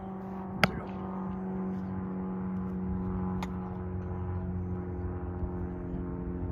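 A steady mechanical hum, like an engine running, with two sharp slaps of a football hitting hands: a loud one just over half a second in, and a fainter, more distant one about three and a half seconds in as the pass is caught.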